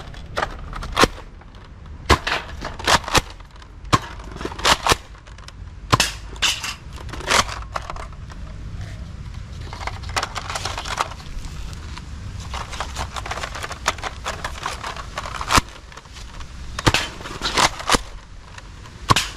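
Plastic clicks and clacks from a red Nerf Mega blaster being loaded with darts and its slide pulled back to prime it. The sharp clicks come irregularly throughout, some in quick clusters.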